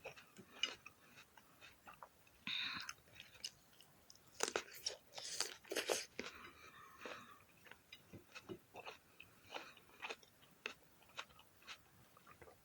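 Close-miked biting and chewing of crisp grapes: irregular crunches and wet mouth clicks, with a louder run of crunching about four to six seconds in.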